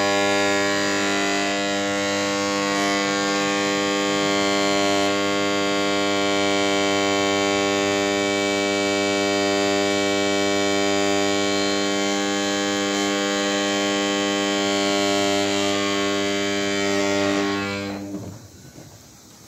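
Induction bearing heater humming loudly, a steady electrical buzz with many overtones, as it heats a Cat C15 crankshaft gear toward a 215-degree setting for fitting. The hum cuts off about 18 seconds in.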